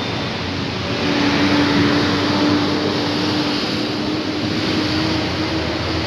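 A motor vehicle's engine humming at one steady pitch, starting about a second in, over a loud, even rush of outdoor noise.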